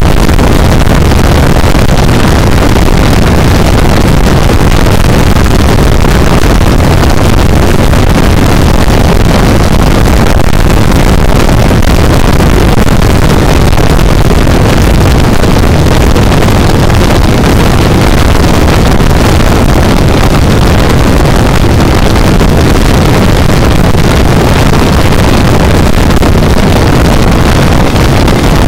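Constant heavy wind rush on the microphone of a camera mounted on the front of a Honda CB400 motorcycle, mixed with the bike's engine running at a steady cruise.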